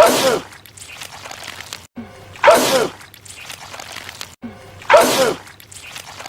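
A man's loud sneeze from a film soundtrack, repeated on a loop: three identical sneezes about two and a half seconds apart, each a sudden blast with a falling voiced 'choo' and a spray of hiss. A brief cut to silence comes just before each repeat, where the loop restarts.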